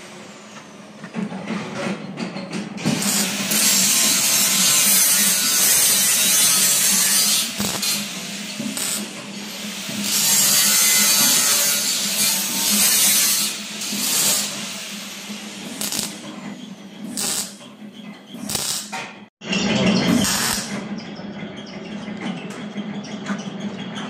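Welding steel profile legs onto a stainless-steel washing-machine drum. Loud hissing arc noise comes in runs of several seconds, with shorter bursts later, over a steady low hum.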